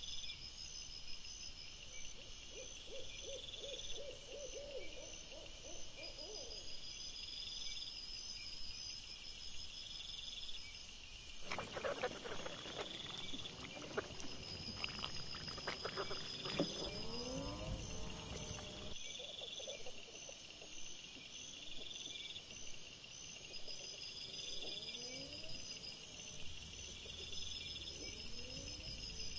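Crickets chirping in a steady, pulsing chorus. Wild boar grunt and rustle as they forage: a quick run of low grunts a few seconds in, a louder stretch of rustling with short gliding squeals and grunts about halfway through, and a few more grunts near the end.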